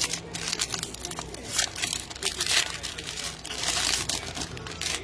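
Foil trading-card pack wrapper crinkling and tearing as it is ripped open, a run of sharp, irregular crackles.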